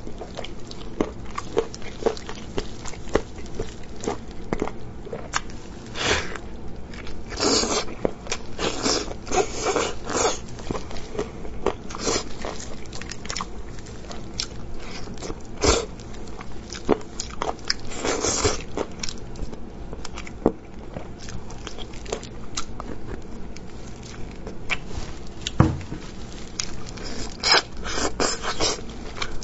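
Close-up eating sounds: biting, tearing and chewing tender braised pork rib meat pulled from the bone by hand. The sound is a string of irregular wet smacks and crunchy clicks that come in thicker flurries now and then.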